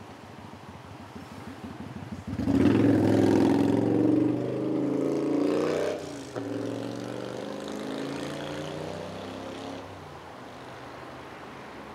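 A car engine accelerating close by. It comes in suddenly about two seconds in and is loudest for a few seconds, then its pitch slowly falls as it fades.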